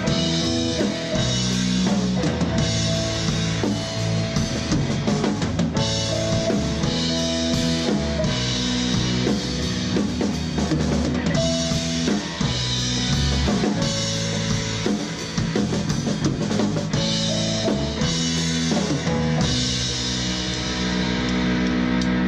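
Rock band playing an instrumental passage, the drum kit with bass drum and snare to the fore over sustained instrument notes.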